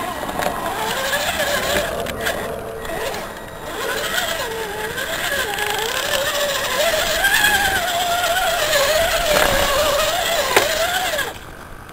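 Scale RC crawler's electric motor and gearbox whining, the pitch rising and falling as the throttle changes while it works through mud. The whine cuts off suddenly near the end.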